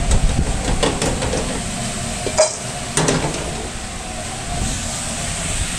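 French fries tipped from a wire fryer basket into a stainless steel bowl: a few metal knocks and clanks, the sharpest about two and a half seconds in, over a steady low rumble.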